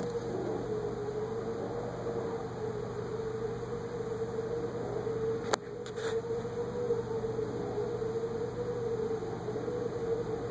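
Federal Signal 2001 rotating outdoor warning siren sounding a steady tone during a monthly test, its pitch wavering slightly. A sharp click comes about halfway through.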